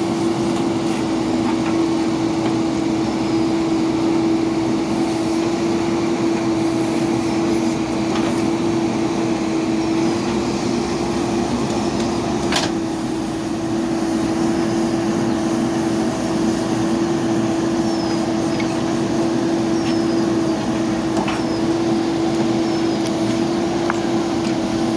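Diesel engine of heavy earthmoving machinery running at a steady, constant speed, with a single sharp clank about halfway through.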